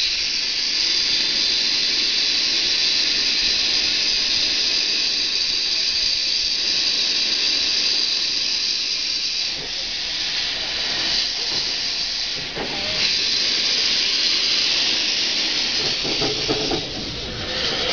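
Andrew Barclay saddle-tank steam locomotive hissing loudly and steadily as it blows off steam, with a couple of brief dips partway through.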